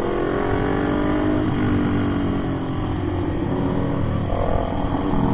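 Motorcycle engine running steadily while riding, its pitch holding level with slight drifts, heard from the rider's own bike.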